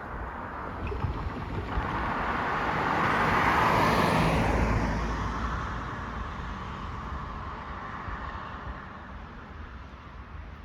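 A car passing by on the road, its tyre and engine noise swelling to a peak about four seconds in and then fading away.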